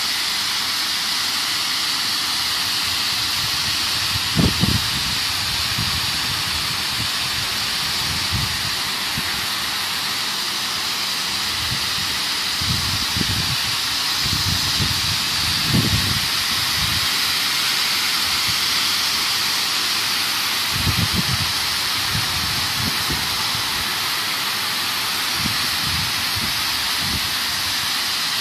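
Steady loud hiss of an automatic touchless truck and bus wash gantry spraying high-pressure water from its nozzles. A few brief low rumbles come through partway in.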